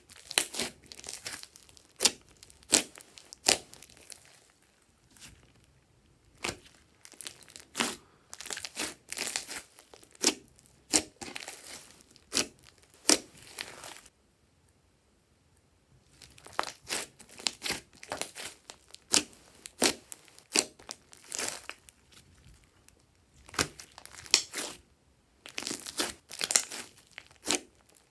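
Glossy slime studded with small beads being squished, pressed and stretched by hand, giving irregular sticky crackles, clicks and pops. The sounds stop for about two seconds midway, then resume.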